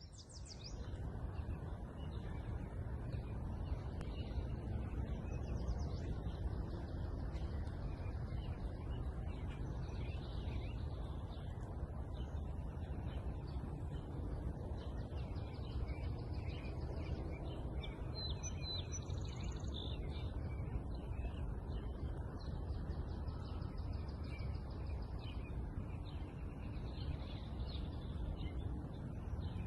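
Small birds chirping many short calls throughout, over a steady low rumble.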